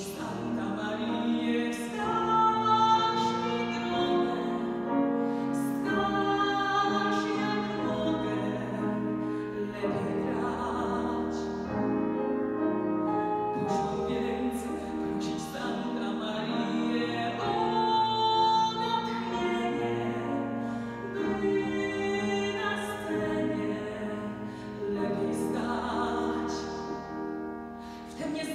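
A woman singing a musical-theatre song in a Polish translation, accompanied by a grand piano, with notes held and changing every second or so.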